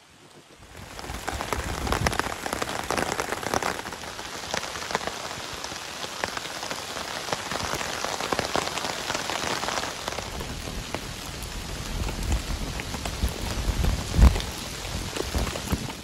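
Hail pelting down, a dense steady clatter of many small hits that builds up about a second in. A few heavier low thumps come near the end.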